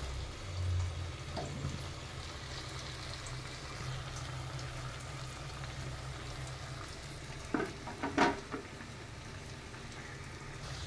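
Whole amla (Indian gooseberries) frying in hot oil, a steady sizzle as a spatula stirs them and lifts them out of the pan. Two brief knocks come about three-quarters of the way through.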